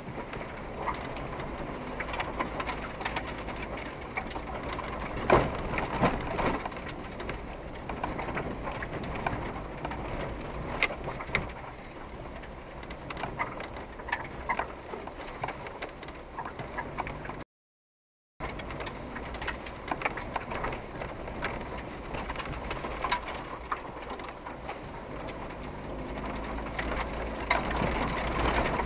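Inside a 4x4 SUV crawling over a rough, muddy dirt track: the engine runs low and steady in a low gear under a bed of tyre and road noise, with many small clicks and knocks from stones, ruts and cabin rattles and a couple of louder thumps about five seconds in. The sound drops out for about a second partway through and grows louder near the end as the speed picks up.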